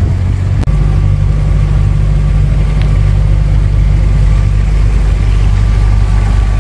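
A hired canal boat's inboard engine running steadily at low cruising speed, a loud, even drone, with one short click about half a second in.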